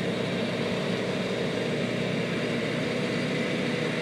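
Heavy farm machinery running steadily at working speed, most likely a John Deere 8600 self-propelled forage harvester chopping corn for silage.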